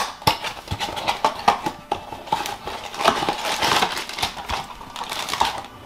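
Small cardboard Funko blind box being handled and opened by hand: the flaps rustle and scrape, with a quick run of small clicks and taps as the box is tipped to get the foil-wrapped figure out.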